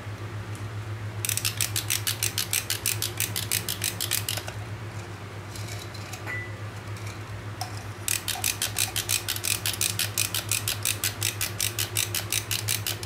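Hakko automatic solder-feed soldering iron's feed mechanism clicking rapidly and evenly as it is worked to push solder wire out to the tip. There are two runs of clicks, one about three seconds long and one about five, over a steady low hum.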